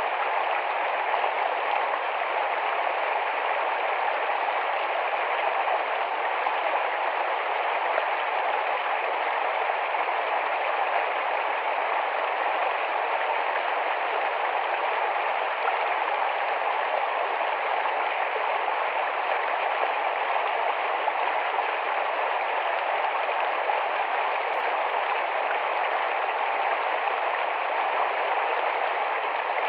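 Shallow, fast-flowing forest stream: a steady, even rush of running water.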